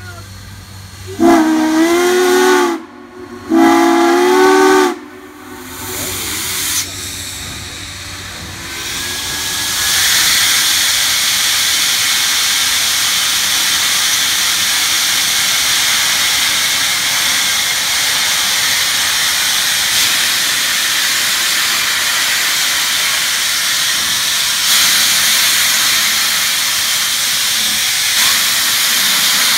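Steam locomotive whistle sounding two blasts, followed by a loud, steady hiss of escaping steam that sets in about ten seconds in.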